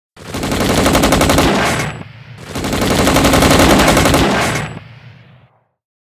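Two long bursts of rapid automatic gunfire, a machine-gun sound effect; the second burst tails off and fades out.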